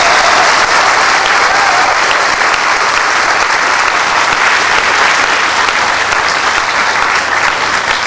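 Audience applauding: dense, steady clapping that tapers off slightly near the end.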